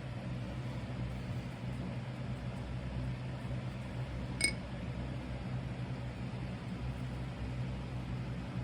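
Steady electrical hum with a fan-like hiss from the electric melting furnace running. About four and a half seconds in, a single short metallic clink rings out.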